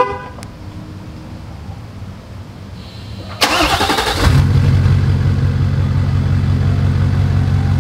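Cummins 5.0-litre V8 turbodiesel in a Nissan Titan XD, remote-started with its exhaust straight-piped and the emissions system removed. A brief chirp right at the start, then the starter cranks about three and a half seconds in, and the engine catches and settles into a loud, steady idle.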